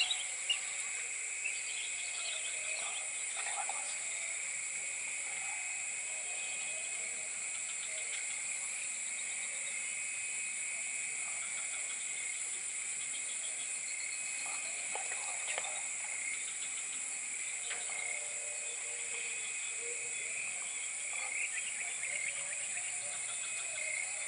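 Steady chorus of insects, a continuous high-pitched buzzing drone in two pitches, with a few faint short calls scattered through it.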